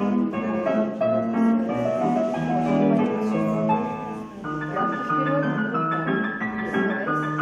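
Piano music playing steadily in chords, accompaniment for ballet floor exercises; it dips briefly about four seconds in as a new phrase with higher held notes begins.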